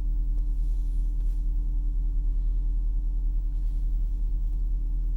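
Porsche Cayenne Turbo running with a steady, even-pitched whine over the low engine rumble. The owner suspected the whine came from the power steering or the transmission.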